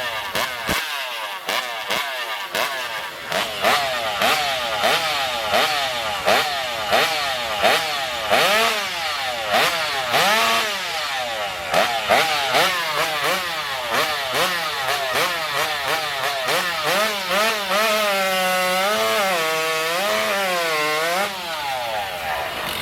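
Two-stroke racing chainsaw revved over and over in quick blips, then held at high revs with its pitch wavering up and down, dropping off near the end.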